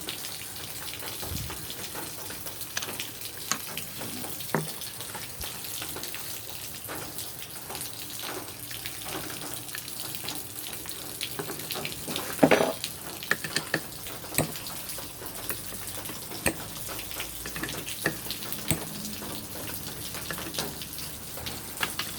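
Motorcycle engine parts and hand tools clicking and clinking over a steady hiss while the engine's side cover is taken apart, with a louder clatter of metal about halfway through.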